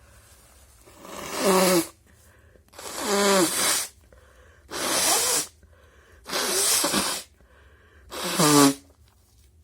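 A person blowing their nose hard five times in a row, each blow about a second long, some with a honking tone.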